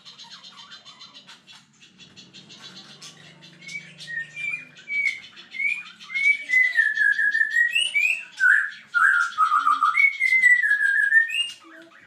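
Songbirds singing: a rapid, high twittering throughout, joined about four seconds in by a loud whistled song of gliding notes that rise and fall, loudest in the second half and breaking off just before the end.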